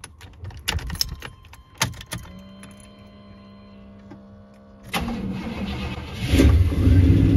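Keys jangle and the ignition clicks, and a steady warning buzzer sounds for a couple of seconds with the key on. About five seconds in the starter cranks, and the GMC pickup's 5.7-litre (350) V8 fires about a second later and keeps running.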